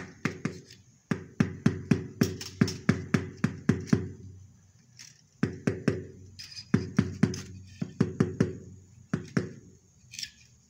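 Rapid hammering knocks in runs of several strikes, about four a second, with short pauses between the runs.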